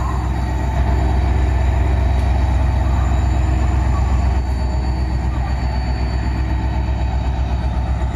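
WDG-4 diesel-electric locomotive's EMD 16-cylinder two-stroke engine idling with a steady low hum that pulses slightly.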